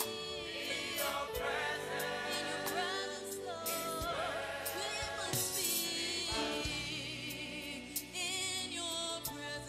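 Gospel choir singing a worship song in several-part harmony.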